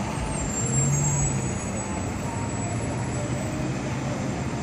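Steady low rumble of engine and traffic noise, with a low hum that swells briefly about a second in.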